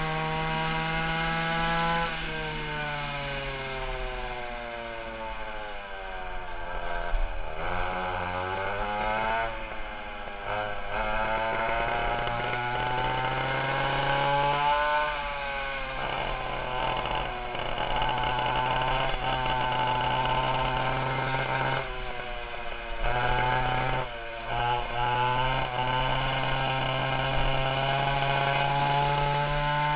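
Twin two-stroke 820 chainsaw engines on a 1960 Fox go-kart, running hard, with the pitch falling and climbing again several times as the kart slows and speeds up, then held high for long stretches.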